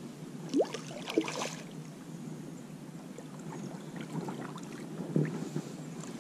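Water lapping and sloshing against a plastic fishing kayak while a hooked fish is brought alongside, with scattered small knocks. There is a short rising squeak about half a second in.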